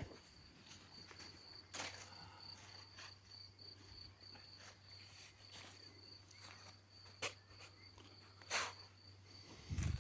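Faint steady high-pitched cricket trill outdoors, with a few short scrapes or knocks about two seconds in and again near the end.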